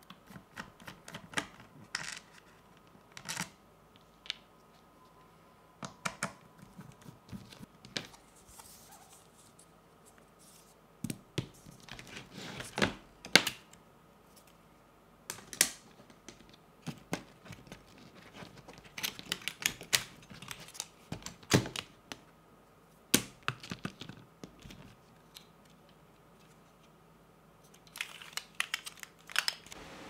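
Irregular sharp plastic and acrylic clicks and clacks as an Akko ACR61 stacked-acrylic mechanical keyboard is taken apart by hand, with short pauses between bursts.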